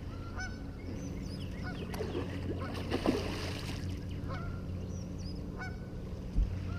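Geese honking repeatedly, short calls about once a second, over a steady low hum.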